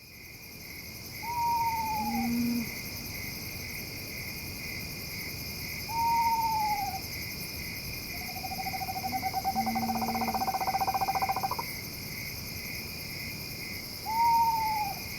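Night soundscape: an eastern screech owl gives three descending whinnies and one long level trill, with two short, much deeper owl hoots between them. Under it, a steady chorus of katydids and crickets chirps in an even pulse.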